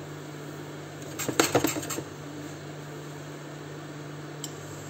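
A frying pan of dry spices shifted on a glass induction hob, giving a short rattle of metal clicks and clatter about a second in. A steady low hum of the switched-on hob runs underneath.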